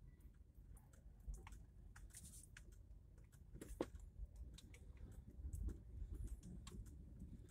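Faint low rumble of a car driving over cobblestones, heard inside the cabin, with scattered light clicks and rattles.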